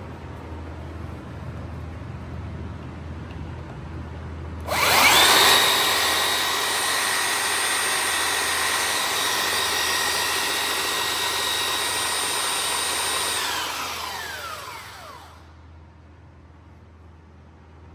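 Makita BS001G 40Vmax brushless cordless belt sander switched on about five seconds in, its motor spinning up quickly to a steady high whine. It runs for about nine seconds, then is switched off and winds down over a couple of seconds.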